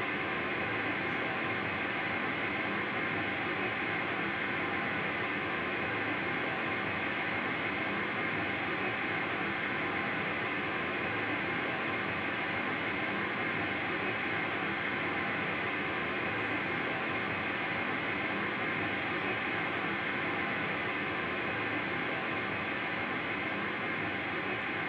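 Live ensemble of about a dozen musicians holding a dense, steady, noise-like wall of many sustained pitches at once, with no beat and no change in loudness.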